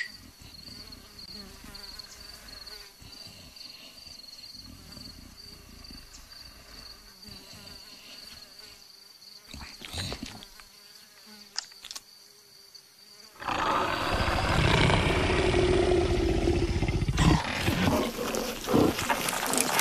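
Savanna ambience with a steady high insect drone and a buzzing fly, then from about 13.5 s a loud, drawn-out big-cat growl from a leopard, followed by a few sharp scrapes and knocks near the end.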